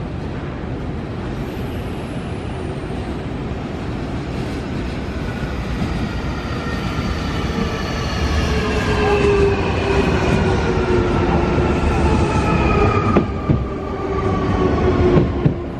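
Nankai 8300 series electric train approaching and running along the platform, growing steadily louder. Under the rumble of wheels on rail, the traction motors whine in several tones that fall slowly in pitch. A few sharp wheel knocks come near the end.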